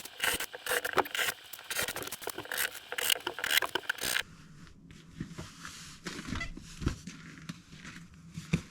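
Dense scraping and rustling with quick clicks for about four seconds. Then the sound changes abruptly to a quieter background with a few scattered knocks.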